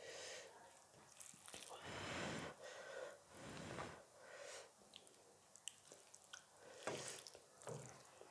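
Quiet close-up eating sounds: soft breaths through the nose between mouthfuls, with small wet mouth clicks from chewing.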